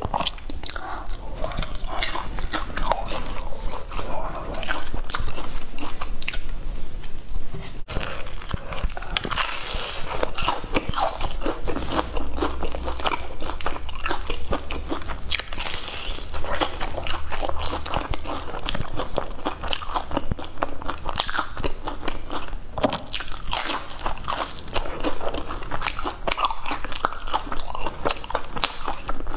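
Close-miked eating: a person biting into crisp golden fried cakes and chewing them with many small crunches.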